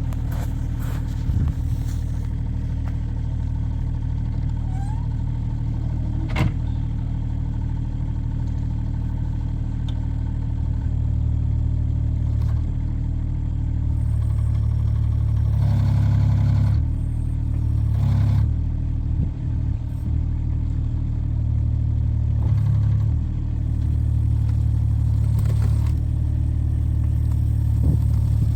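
Kubota mini excavator's diesel engine running steadily, its note swelling under hydraulic load a few times around the middle and again later. A single sharp knock about six seconds in.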